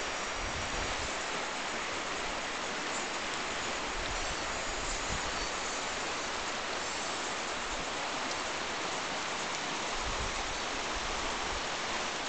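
Shallow river running over a stony bed: a steady, even rush of water.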